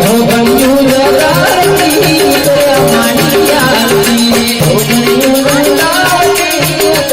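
Gujarati devotional aarti music: a melody line over a steady drum beat and a constant shaken rattling percussion.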